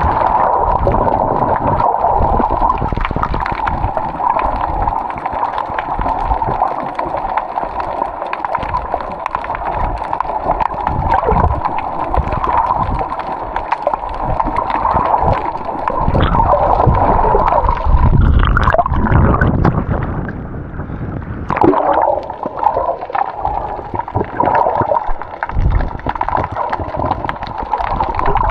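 Water gurgling and sloshing close to the microphone, with uneven low rumbles.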